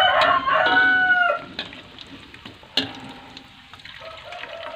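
A rooster crows once at the start, a call of about a second and a half. After it, hot oil sizzles softly in a wok, with a single metal clink of the frying strainer about three seconds in.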